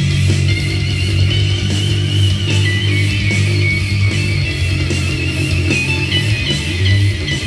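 Electric guitar song played through an Earthquaker Devices Astral Destiny octave reverb pedal: sustained low notes under shimmering high tones.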